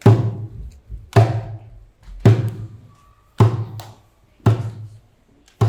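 Slow, steady drumbeat: six deep, ringing drum hits about a second apart.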